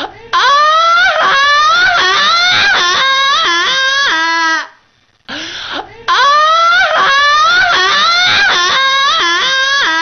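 Alarm clock sounding its alarm: a recorded wailing cry of about five seconds, played over and over through a small speaker, with a short gap about halfway through.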